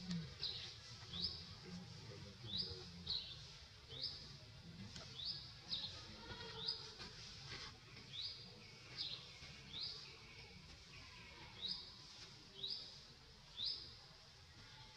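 A bird calling over and over in short, high chirps, about one a second and sometimes two in quick succession, over a low steady rumble of background noise.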